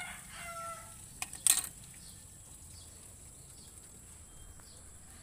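Two sharp clicks, the second louder, about a second and a half in, from the freshly removed metal radiator cap being handled. Just before them comes a short pitched animal call, then only a faint low background hum.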